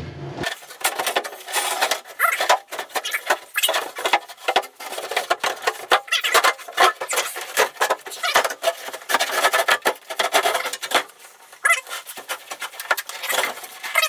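Fiberglass bathtub being shifted and lifted out of its alcove: a rapid, irregular clatter of knocks, scrapes and rubbing. It starts abruptly, eases off briefly near the end, then picks up again.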